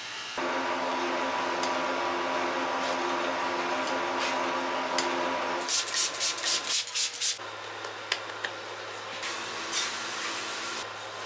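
A steady machine hum with a few held tones that stops about five and a half seconds in. Then a trigger spray bottle gives about seven quick hissing squirts in under two seconds, misting proofed bread buns, followed by a few light clicks.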